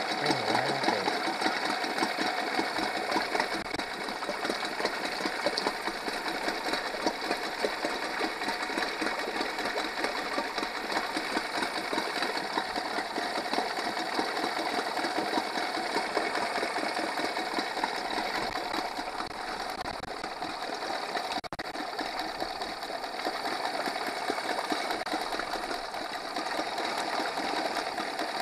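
Honda 8 hp four-stroke outboard, cowling off, idling steadily without choke: it now holds a smooth idle after its carburettor's clogged idle (pilot) jet was cleaned out.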